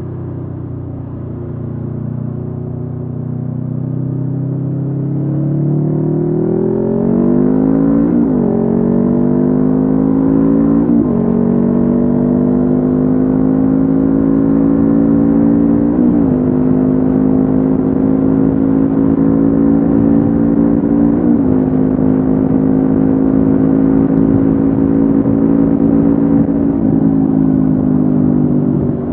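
Honda CB500F's parallel-twin engine through a Mivv GP Pro aftermarket exhaust, accelerating with rising pitch and then holding a steady cruise. The pitch dips briefly about four times as gears are changed.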